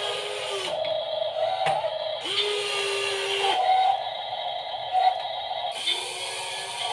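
Small electric motors of a 1/16-scale WL16800 RC excavator model whirring in short runs. A steady whine stops under a second in, runs again for about a second in the middle and starts again near the end, over a constant gear and motor buzz.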